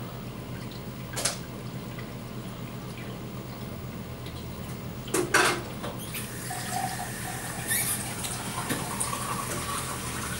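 Aquarium filter running: water trickling and splashing steadily into the tank over a low steady hum. Two short sharp knocks, about a second in and about five seconds in.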